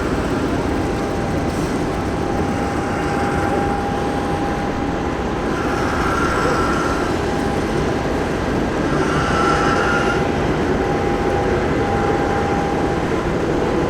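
Diesel engines of M3 amphibious bridging rigs running steadily, a constant engine drone with a thin whine that fades in and out.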